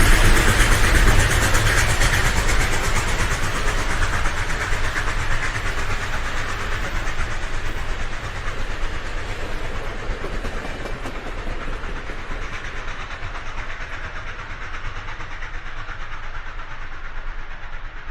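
Train rolling past on rails with rapid wheel clatter, the sound fading steadily and growing duller as the train moves away.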